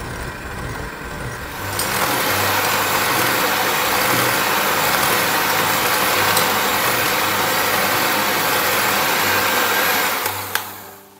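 Electric hand mixer running, its twin wire beaters whipping a thick, pale mixture in a glass bowl. It gets loud about two seconds in and stops about a second before the end.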